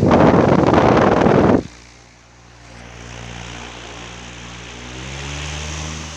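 Tron AT-50 pedestal fan running: for about the first second and a half its airflow buffets the microphone with a loud rush, then the steady hum of the motor and blades comes through, its pitch rising slightly about five seconds in.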